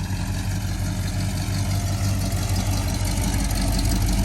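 Chevrolet Monte Carlo SS's carbureted V8 idling steadily, its low exhaust note getting a little louder near the end.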